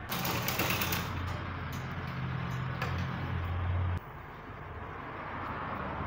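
Black domestic sewing machine stitching a zipper into a gown's seam, running steadily for about four seconds and then stopping abruptly.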